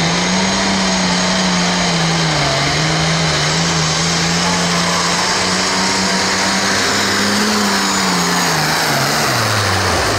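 Turbocharged diesel engine of an International Farmall Pro Farm pulling tractor at full throttle, dragging the weight sled. A loud, steady high engine note that dips briefly about two and a half seconds in and falls in pitch near the end as the engine comes down.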